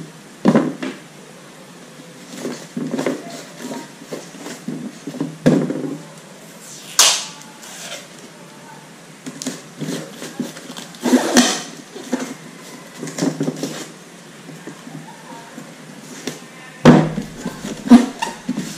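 Scattered handling sounds of tape and scissors being worked on a styrofoam growbox lid: short rustles, knocks and a few scraping strips, the loudest near the end.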